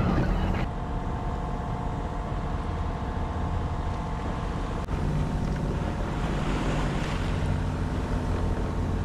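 Boat engine running with a steady drone, mixed with waves and wind on the microphone.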